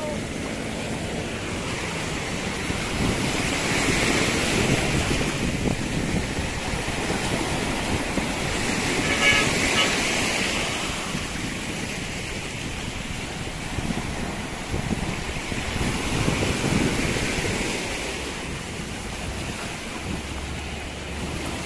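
Small sea waves washing in over a rocky, sandy shore, the surf swelling and fading three times, with wind buffeting the microphone.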